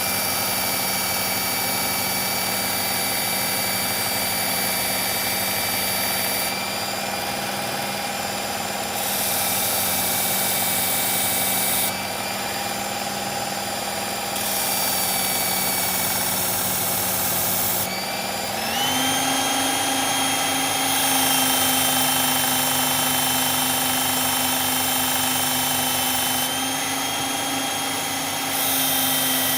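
Electric belt knife sharpener running with its fine abrasive belt fitted, making a steady motor whine. A blade is drawn across the belt in passes, so a hiss of steel grinding on the belt comes and goes every few seconds. About two-thirds of the way through the motor steps up to a higher speed and pitch.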